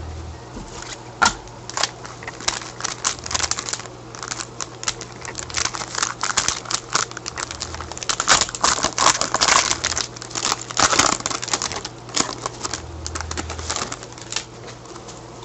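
Trading cards and pack wrapping being handled: dense, irregular clicks, flicks and crinkling as cards are slid and shuffled by hand, over a faint steady low hum.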